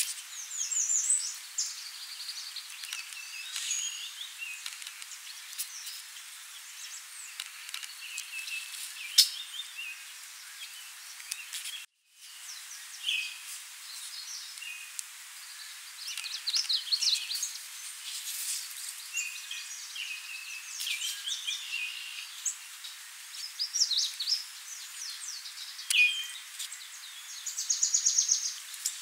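Several songbirds singing and calling over one another, short chirps and quick trilled phrases, over a steady background hiss.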